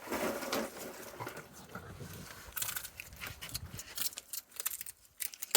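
Raccoons eating treats: irregular crunching, chewing and small clicks and scuffles, louder in the first second.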